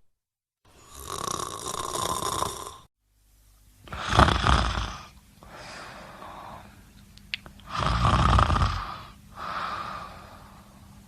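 Snoring, in two stretches separated by a short gap of silence. In the second stretch come two loud snores about four seconds apart, each followed by a softer breath out, over a faint steady hum.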